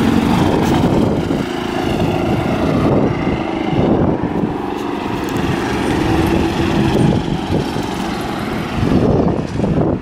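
An engine running steadily nearby as a drone that fades out after about seven seconds, with wind rumbling on the microphone.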